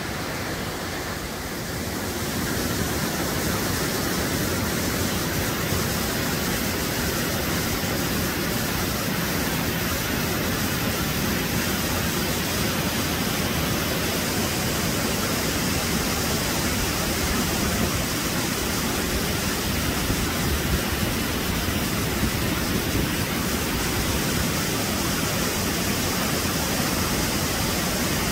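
Steady rush of running water, a mountain stream or waterfall close by.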